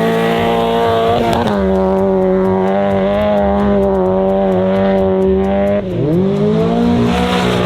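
Car engine under hard acceleration, held at high revs, with a brief dip about a second in and a deeper drop near six seconds before it climbs back up.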